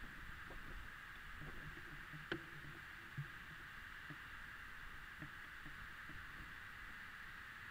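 Faint steady hiss over a low rumble, with scattered soft knocks, a sharp click a little over two seconds in and a smaller one about a second later.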